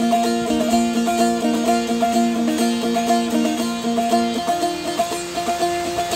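Azerbaijani saz played solo: quick plucked melody over steady ringing drone notes. The lowest drone drops out partway through, and the playing grows quieter near the end.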